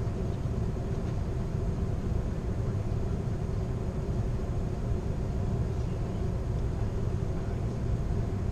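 Steady low rumble of an Amtrak California Zephyr passenger car rolling along the rails, heard from inside the car at the rear of the train, with a faint steady hum over it.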